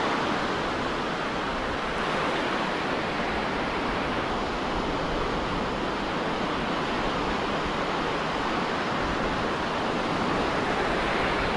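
Surf on a sandy beach: small breaking waves and the wash of foam up the sand, a steady rushing hiss with no single wave standing out.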